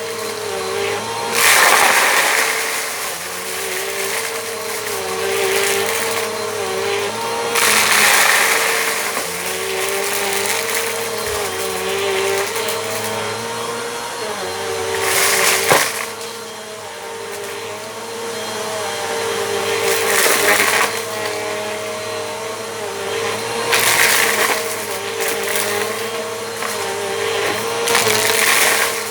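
Bissell Compact vacuum cleaner running on a rug with a steady motor whine. The suction hiss swells louder about six times as it is pushed back and forth, crunching up grit, with one sharp click of debris near the middle.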